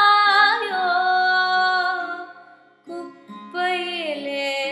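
A woman singing in Carnatic style over a steady drone. She holds a long note with a wavering pitch that fades out about two seconds in, then starts a new falling phrase about a second and a half later.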